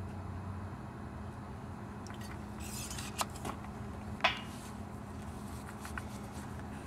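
A few light metallic clicks and clinks as a hand tool is handled against steel tubing, the clearest about three and four seconds in, over a low steady background hum.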